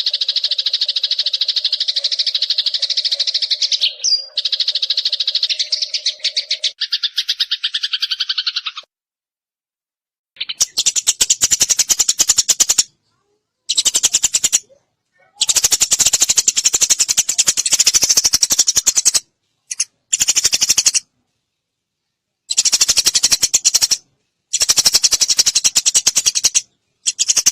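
Eurasian tree sparrows squabbling, a dense, very rapid, harsh chattering. A steady low tone runs under the first six seconds. After about nine seconds the chatter comes in stretches of a few seconds, each cut off abruptly by a brief silence.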